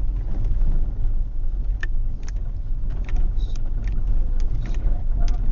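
Car driving over a rough dirt track, heard from inside the cabin: a steady low rumble with a few short knocks and rattles.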